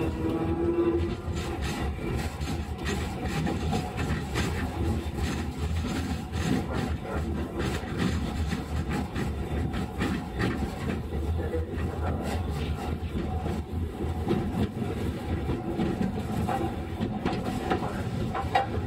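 Sapporo streetcar M100-type car M101 running, heard from inside: a steady rumble of wheels on rail, with frequent knocks and rattles from the track. A motor whine rises briefly near the start.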